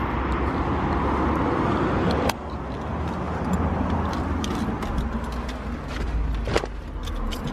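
Night street ambience with a steady rush of traffic, and handling clicks and knocks as someone climbs into a car. The rush drops suddenly a little over two seconds in, and there is a single thump near the end.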